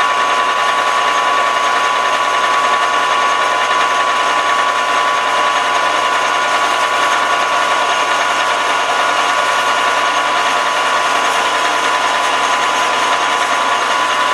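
Metal lathe running while a twist drill, held still in the tailstock chuck, bores a deep hole into the spinning metal shaft. It makes a steady machine whine with one strong tone that doesn't change.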